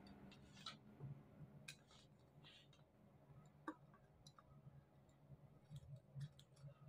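Near silence with a faint low hum and scattered faint small clicks and taps, from wires and a soldering iron being handled against a circuit board during soldering.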